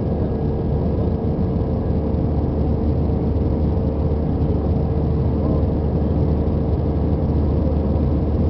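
Airbus A320's jet engines and rushing air heard inside the passenger cabin in flight: a loud, steady drone with a constant tone running through it.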